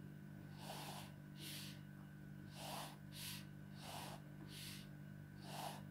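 Black felt-tip pen drawing quick long strokes on paper: about seven faint, short scratches, over a steady low hum.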